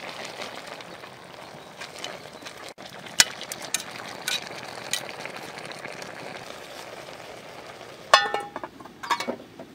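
Whole chicken sizzling as it fries in a pot, with metal tongs clinking against the pot a few times as the bird is turned. Near the end there is a short ringing metal clank.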